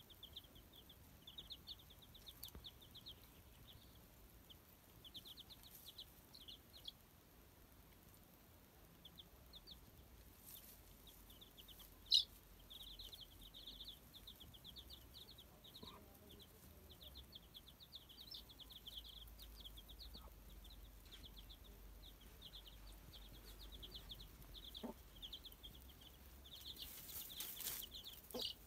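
Six-day-old chicks peeping: faint, rapid runs of short high chirps, with one louder peep about twelve seconds in.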